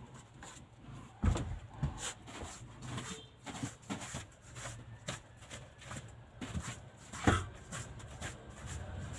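Knocks, clicks and thumps of things being handled and moved around under the seats inside a van during cleaning, with two louder thumps, one about a second in and one near the end, over a steady low hum.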